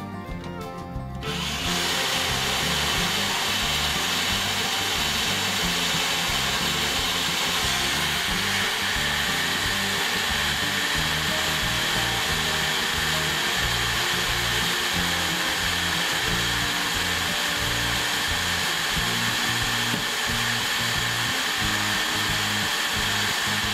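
Cordless drill with a black oxide bit boring dry, without cutting oil, into the thick steel of a shipping container's door post. It runs as one long, steady high grinding whine that starts about a second and a half in, with a higher tone joining partway through.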